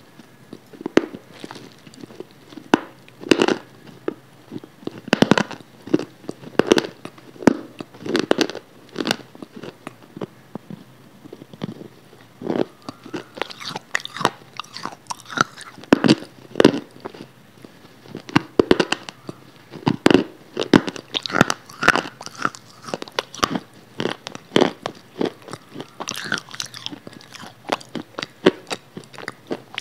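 A person chewing crunchy food close to the microphone: irregular crisp crunches and wet mouth clicks, several a second, with no pauses.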